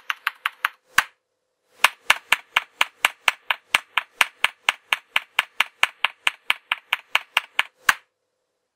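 Computer keyboard keys clicking in a fast, very even run of keystrokes, about four or five a second. There is a short break about a second in, and the clicking stops shortly before the end.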